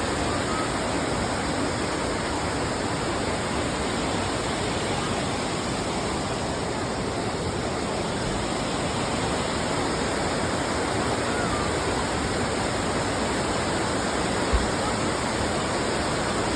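Steady, unbroken rush of the Seven Sisters waterfall, its falling water filling the whole sound.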